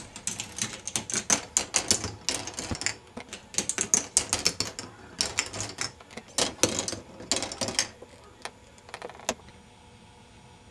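Plastic K'nex ball machine running: rapid clicking and clattering from its lift gears and the balls on its plastic tracks, in a series of dense bursts. It thins to a few single clicks and then stops.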